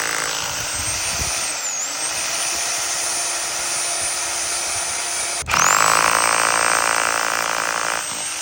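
GLD electric hammer drill running in drill mode with a steady high motor whine that dips briefly about two seconds in. About five and a half seconds in it cuts out and restarts, running louder and noisier until near the end, when it begins to wind down.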